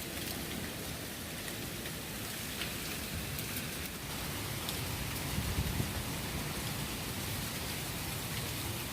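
Steady rain with scattered drops tapping, and gusty wind rumbling low around the middle.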